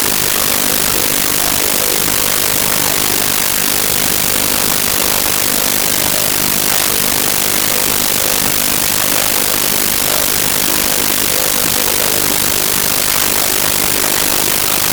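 Loud, steady hiss and static from a faulty audio recording, covering everything else.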